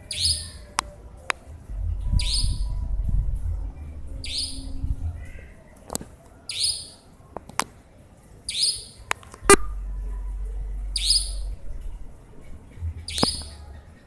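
A nightjar giving a short, high-pitched call over and over, seven times at a steady pace of about one call every two seconds.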